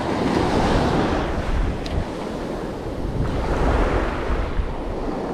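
Waves breaking and washing up the beach at close range, with wind buffeting the microphone.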